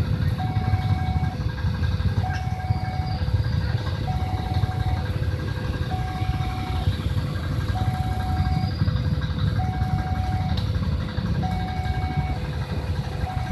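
Railway level-crossing warning alarm sounding a repeated two-tone high–low signal, about one cycle every two seconds, over a steady low rumble.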